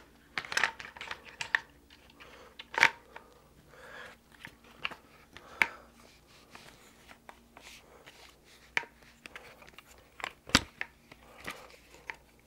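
Plastic and metal clicks, knocks and rattles as a Glock 17 pistol is fitted into a CAA Roni C-G2 carbine kit, with a heavier knock late on.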